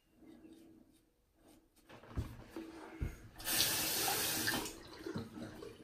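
Bathroom sink tap running for about a second and a half, with two dull knocks just before it.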